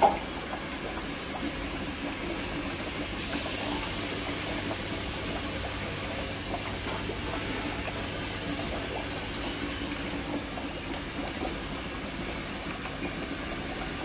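Water churning and splashing steadily in a fish tub, stirred by the outflow of a pump hose. A brief click right at the start.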